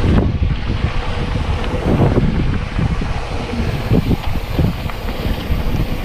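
Wind buffeting the microphone of a bike-mounted action camera, with the mountain bike's tyres rumbling over a dirt singletrack. Irregular knocks and rattles from the bike jolting over bumps come through, the clearest near the start, about two seconds in and about four seconds in.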